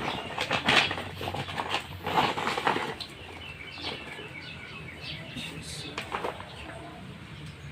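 Clicks and rattles of metal engine parts and tools being handled, busiest over the first three seconds and then sparser, with short bird chirps in the background.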